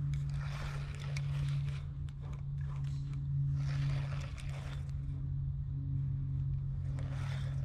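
Spinning fishing reel cranked during a lure retrieve, with a steady low hum throughout and scratchy rustling that comes and goes in short spells.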